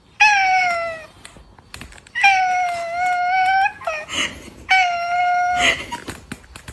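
A cat yowling in three long, drawn-out meows, each dipping slightly in pitch and then holding steady.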